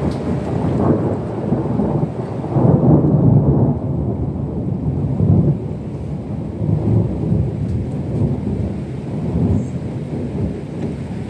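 Thunder rolling in a long, uneven rumble that swells to its loudest a few seconds in and keeps rumbling on.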